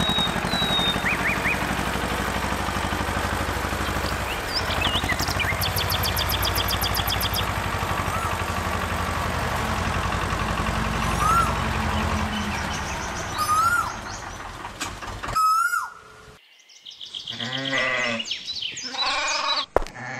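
A small engine running with a steady rapid chugging, with birds chirping over it. It stops after about fifteen seconds, and then several bleats follow.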